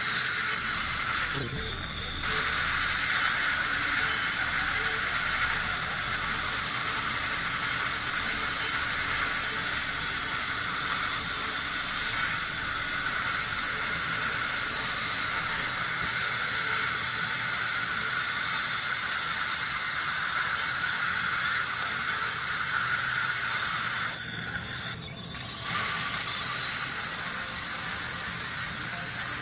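Dental handpiece grinding leftover orthodontic bracket adhesive off the teeth: a steady hissing whine with thin high tones, stopping briefly near the start and again about 24 seconds in.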